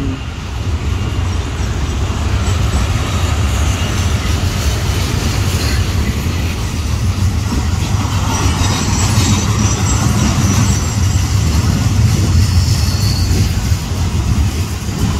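Loaded freight cars of a steel-coil unit train rolling past on the curve: a steady, loud rumble of wheels on rail.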